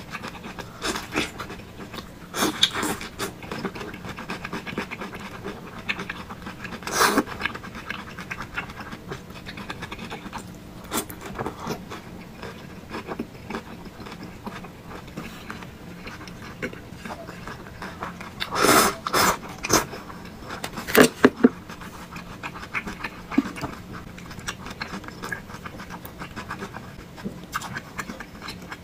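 Close-up eating sounds from a person eating thick noodles with meatballs: irregular wet chewing and mouth clicks, with a few louder bursts, one about a third of the way in and two more about two-thirds of the way through.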